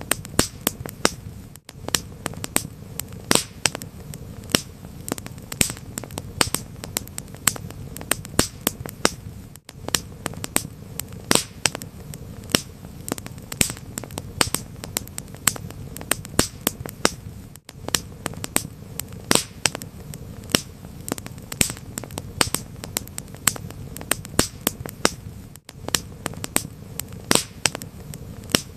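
Wood fire crackling: irregular sharp pops and snaps over a soft low rumble of the flames, with a brief dip in the sound about every eight seconds.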